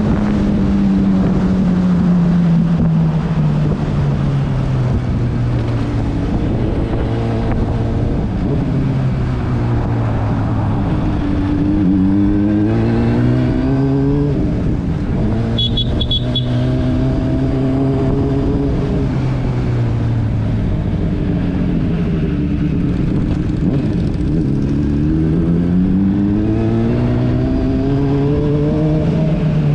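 Motorcycle engine under way. Its pitch sinks slowly as it eases off over the first ten seconds, then climbs in quick runs up through the gears a little before halfway and again near the end, over a steady rushing noise.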